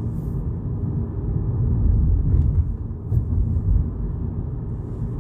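Cabin noise of a Volkswagen Polo GTI driving slowly in city traffic: a steady low rumble of engine and tyres on the road.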